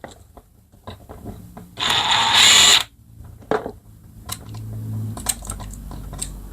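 Power impact tool hammering on the 3/8 in nut that holds a carburetor to the engine's air intake, a loud rattle lasting about a second, two seconds in. It then runs more smoothly and quietly with a low hum as the loosened nut spins off, with scattered clicks of metal parts being handled.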